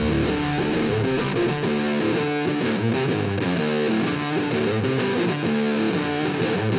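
Background music: a guitar-led track playing a steady run of picked notes.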